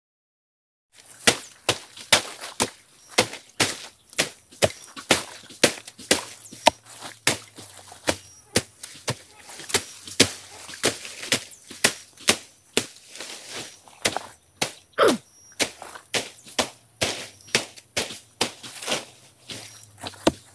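Repeated sharp blows of a hand tool on wood, a steady chopping rhythm of about two strikes a second.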